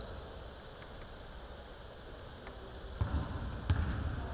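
A basketball bounced twice on a hardwood gym floor near the end, the start of a dribble. Before that, a few short, high sneaker squeaks on the court.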